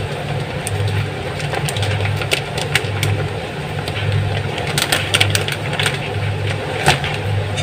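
A low machine hum that swells and fades about once a second, with light rustles and ticks from a plastic flour bag being handled and tipped into a stainless steel bowl.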